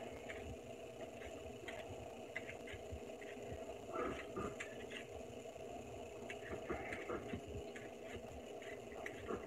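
Vegetable peeler scraping the skin off a potato in short, irregular strokes, faint against a steady low hum.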